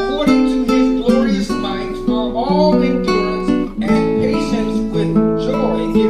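Acoustic guitar music, strummed and plucked, with a steady run of changing chords.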